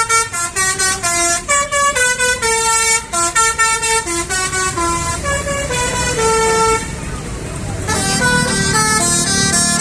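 Basuri telolet musical bus horn playing a quick tune of short held notes, stopping about 7 s in. About a second later another tune starts over a low engine hum.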